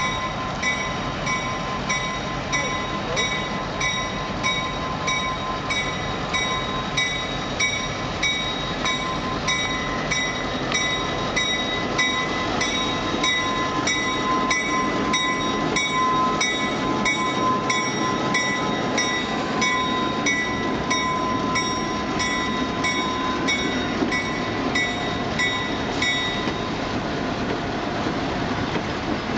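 Lackawanna 664 EMD F-unit diesel locomotives rolling slowly past with their engines running. The locomotive bell rings at two to three strikes a second and stops near the end.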